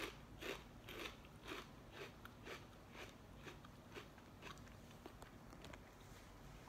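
A person chewing crunchy lentil chips with the mouth closed: faint, even crunches about two a second that grow softer and die away about four or five seconds in.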